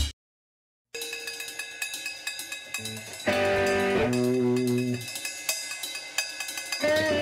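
Background music: a loud rock track cuts off suddenly, and after about a second of silence a quieter music track with held tones begins.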